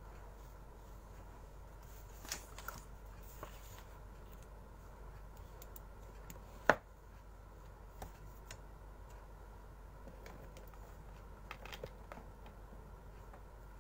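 Small handling noises at a desk: soft rustles and scattered light clicks as things are picked up and moved, with one sharp click about halfway through, over a steady low hum.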